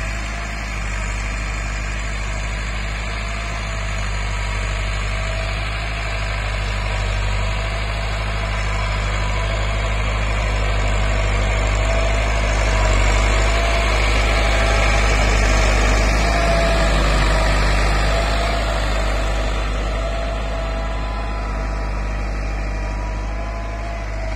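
Massey Ferguson 385 four-cylinder diesel tractor engine running steadily at about 1600–1700 rpm under load, pulling an 11-tine cultivator with its hydraulic lift fully set. It grows louder toward the middle as the tractor comes close, then fades again near the end.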